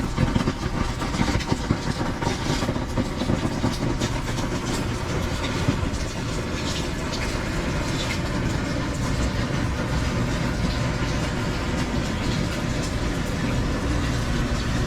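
Steady rain falling, a dense wash of noise with many small sharp drop ticks, over a low steady rumble.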